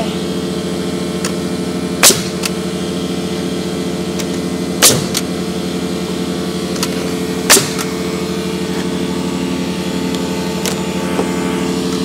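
Pneumatic nail gun firing three times, a few seconds apart, driving nails into wooden slab siding, over the steady drone of the air compressor that feeds it.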